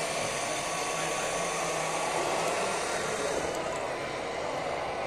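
Radio-controlled tipper truck with a loaded trailer driving at a crawl: a steady whirring hiss from its electric drive and gearbox.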